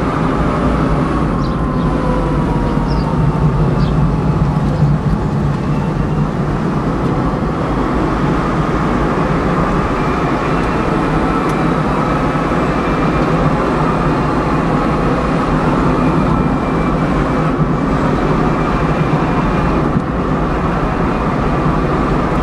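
Cabin sound of a Smart electric car coasting downhill under regenerative braking, with no engine: steady road and tyre rumble with a faint whistle from the electric drive. A faint tone slides slowly down early on.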